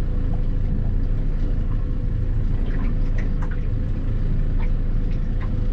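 Boat engine running with a steady low rumble and hum, with a few light scattered clicks over it.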